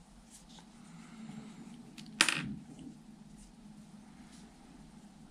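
Quiet handling of a Daiwa Laguna LT 1000 spinning-reel spool, with one sharp click about two seconds in and a few faint ticks, over a faint steady low hum.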